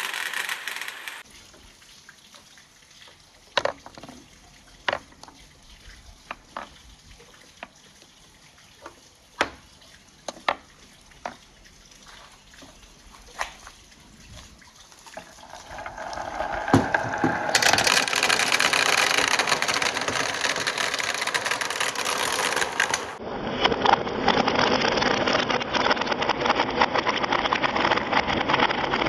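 Marbles clacking through a PVC pipe and rain-gutter marble run, scattered sharp clicks over a quiet background, then a steady rush of running water that builds up about halfway through and stays loud.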